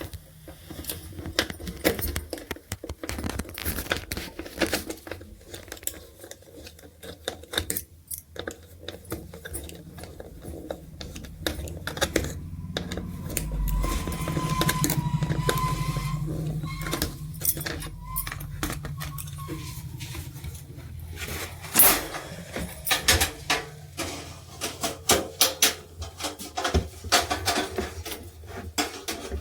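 Small metal parts and tools clinking and rattling during hand repair work, with a low hum swelling for several seconds in the middle.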